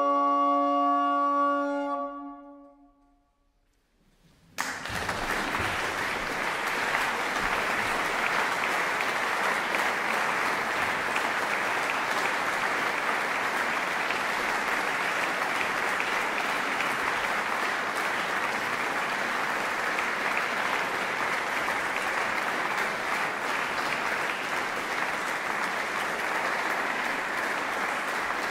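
A recorder consort holds its final chord, which fades away about three seconds in. After a moment of silence, an audience breaks into steady applause about four and a half seconds in.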